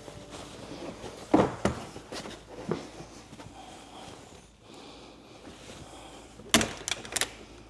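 Sharp knocks and thumps of patio chairs being handled and set down. There are three single knocks in the first three seconds, then a quick run of knocks near the end.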